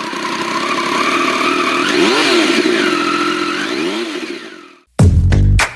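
BMW R 18's 1802 cc air/oil-cooled boxer twin running, revved up and down twice in quick blips, then fading out. About five seconds in, loud music with a heavy beat starts.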